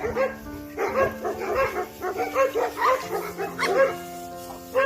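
Dogs barking in several quick runs of short barks, over background music of long held notes.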